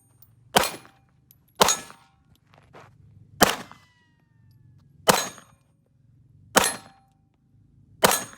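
Six gunshots at steel targets, about one every second and a half, each a sharp crack followed by a brief metallic ringing clang.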